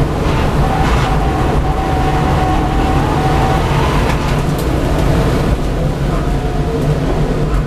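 V8 Supercar's V8 engine running under load at high speed, heard from inside the cockpit, with road and wind noise.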